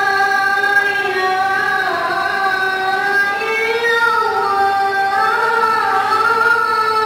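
A boy chanting zikir and selawat, devotional praises upon the Prophet, into a microphone: one voice in a slow melody of long held notes that bend gently in pitch.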